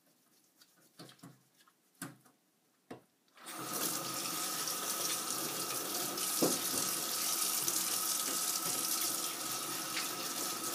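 A few soft clicks and knocks, then the kitchen tap is turned on about three and a half seconds in. Water runs steadily into a stainless steel sink, splashing over hands rinsing a catfish, with one louder knock partway through.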